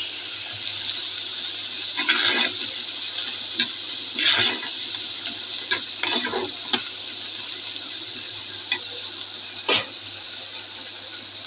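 Spice paste of ginger, garlic, cumin and dried chilli frying in hot oil in a karahi with onions, a steady sizzle, with a spatula stirring and scraping the pan a few times.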